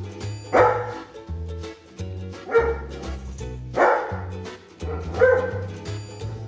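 Golden retriever giving four short barks, one every second or so, demand-barking at its owner for the chicken on his plate. Background music plays underneath.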